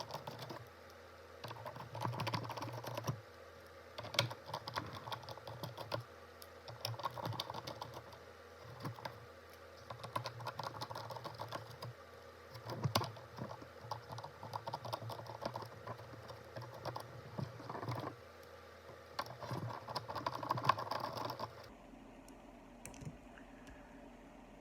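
Close, rapid light clicking and scratching in irregular bursts, from hands working on a small circuit board and its plastic parts. A faint steady hum sits underneath.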